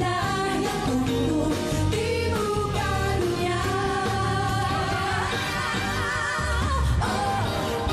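Female vocalists singing a pop song live into microphones, backed by an orchestra, with a long held note with vibrato about five seconds in.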